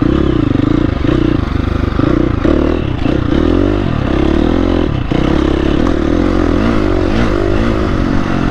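Dirt bike engine pulling away from low revs and then revving up and down, its pitch rising and falling again and again as the throttle opens and closes while riding.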